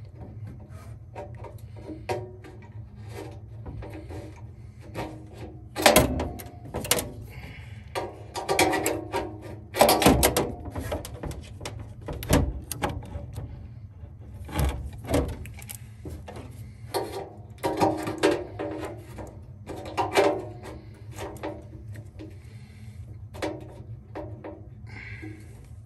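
Irregular clicks, knocks and rattles of hands working wires and metal parts inside an HVAC unit's cabinet while a new capacitor is being wired in, the loudest knocks about six and ten seconds in, over a steady low hum.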